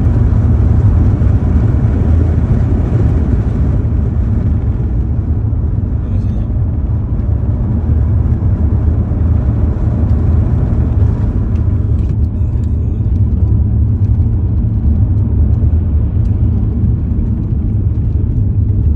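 Road noise inside a moving car's cabin: a steady low rumble of tyres and engine at cruising speed.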